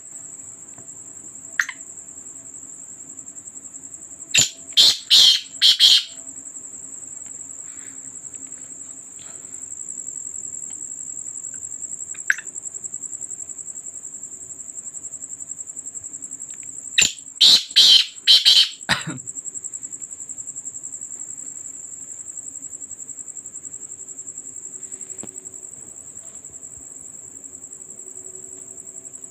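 Black francolin calling twice, each call a loud burst of about five harsh, grating notes, with a short single note on its own twice in between. A cricket chirps steadily at a high pitch throughout.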